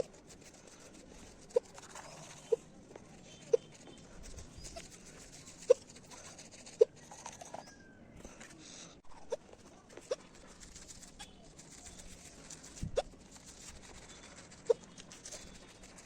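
A woman hiccuping repeatedly while brushing her teeth: about nine short, sharp hics at irregular gaps of one to two seconds.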